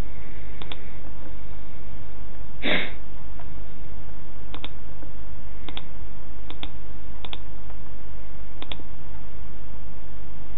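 Sharp clicks, each a close double click, six times over a steady low hum. About a quarter of the way in comes one short, louder burst of noise, the loudest sound here.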